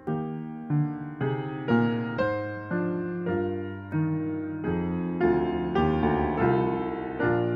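Grand piano played solo, with a slow, gentle piece of notes and chords struck about every half second, each ringing and fading before the next.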